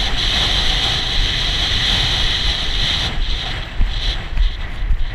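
Wind buffeting a small action camera's microphone: a steady rushing noise with a low rumble and a high hiss. The hiss drops away about three seconds in, and a few soft knocks follow.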